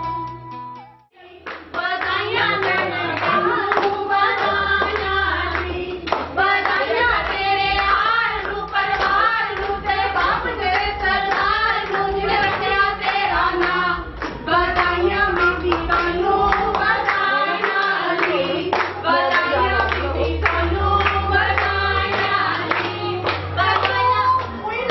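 Several voices singing a song over music with a steady bass line, to frequent hand clapping. It starts after a brief drop about a second in.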